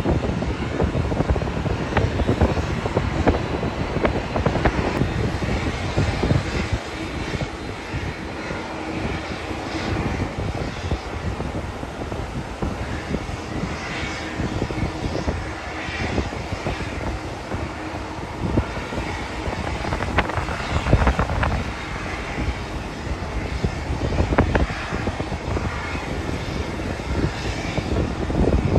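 Wide-body jet airliner's engines running, a steady dense noise, with wind buffeting the microphone, strongest at the start and again near the end.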